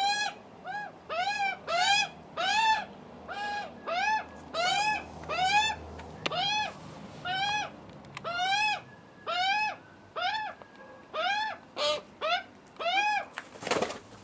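Juvenile Australian magpies begging for food: a long run of short squawks, each rising and falling in pitch, about two a second. Just before the end a brief whoosh of wings as one bird flaps up.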